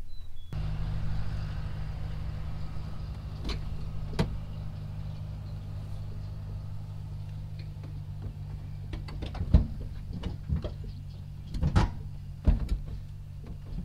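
A steady low hum starting about half a second in, with a few scattered knocks and clunks from a pickup's seats being set and bolted to the cab floor, the loudest about nine and a half seconds in and a pair near the end.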